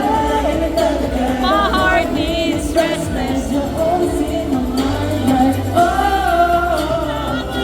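Pop song with a female vocal melody over a steady beat and bass.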